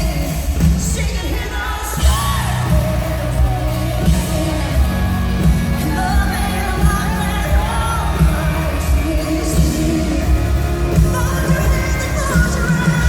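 Live country-pop band with a female lead vocal singing a wavering melody over heavy bass and a steady drum beat.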